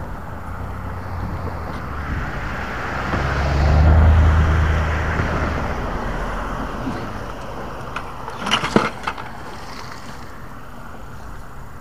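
A vehicle passing over the bridge: a low engine-and-tyre rumble swells to its loudest about four seconds in, then slowly fades. Later comes a quick cluster of sharp knocks.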